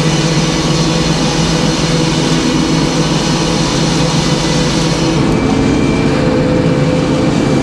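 Large circular sawmill blade ripping through a poplar log over the steady hum of the saw's power unit. The cut finishes about five seconds in, and the blade then spins free with the hum carrying on.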